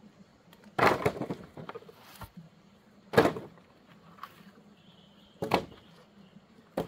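Wooden branches and poles knocking and clattering together as they are handled and dropped: four sharp wooden knocks a couple of seconds apart, the first followed by a brief rattle.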